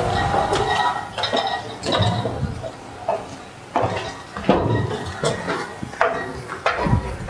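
Irregular metallic clinking and clattering, a quick run of sharp knocks with short ringing tones.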